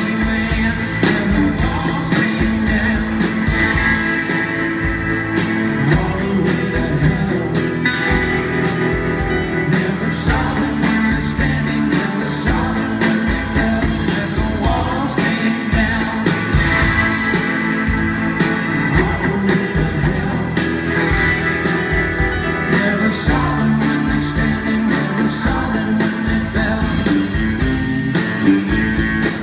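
Live rock band playing a song at full volume: electric and acoustic guitars, keyboards and drums keeping a steady beat, heard from the audience in a large hall.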